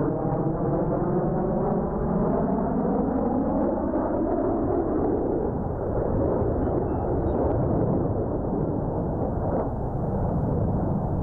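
Jet engine roar from a formation of F/A-18 Hornet jets flying past. A sweeping, rising tone rides on the roar for the first five seconds, then the sound settles into an even roar.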